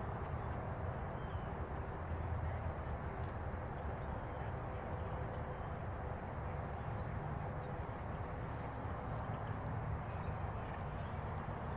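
Horse trotting on the sand footing of an outdoor dressage arena, its hoofbeats muffled under a steady low rumble.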